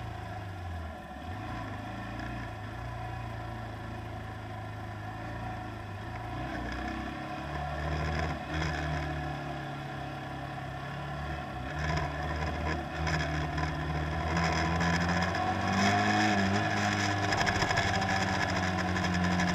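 Tour boat's engine running with a steady low hum, growing louder over the last several seconds.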